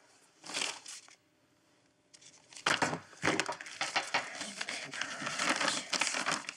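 Rummaging through a handbag: leather and contents rustling and crinkling, with small objects knocked and set down on a desk. The rustling stops briefly after about a second, then comes back thicker and runs on.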